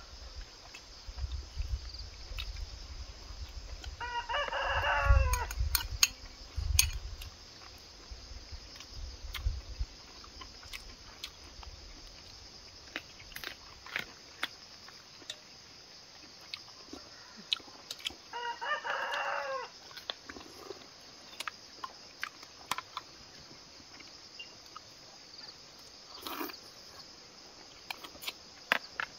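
A rooster crowing twice, each crow about a second and a half long, the second coming some fourteen seconds after the first. Scattered small clicks and taps in between.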